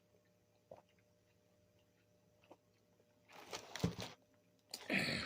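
Person drinking a fountain drink: a few soft clicks, then two short noisy sips about three and five seconds in.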